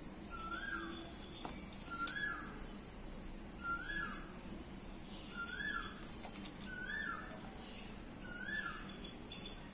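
An animal calling over and over: six short calls that rise and fall in pitch, about one every second and a half.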